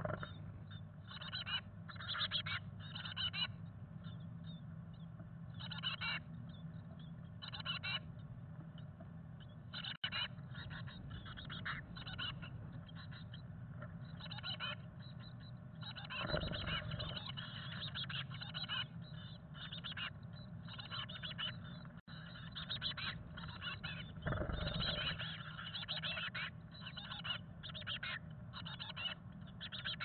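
Chickadee nestlings calling inside a wooden nest box: many short, high chattering calls in bursts, with the rustle and flutter of the nestlings flapping their wings against the moss and walls, loudest about 16 and 24 seconds in. A steady low hum runs underneath.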